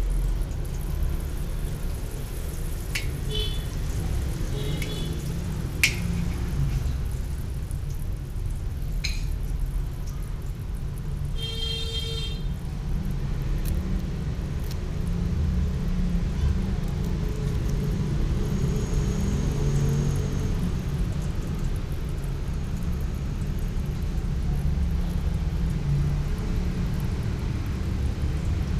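Steady low roar of an LPG gas burner firing under a large steel wok, with a few sharp clicks and a brief high tone in the first half.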